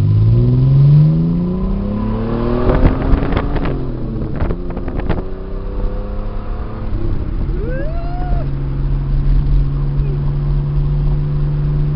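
1985 Pontiac Fiero GT's V6 through a Flowmaster muffler and 3-inch exhaust, accelerating hard from a stop with the engine pitch rising for the first few seconds. After a burst of sharp noise around the fourth second it settles into a steady, lower drone.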